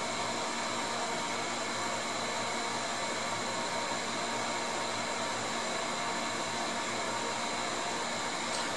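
Steady rushing noise with a few faint, steady high-pitched whines, from equipment running at a powered-up amateur radio amplifier bench.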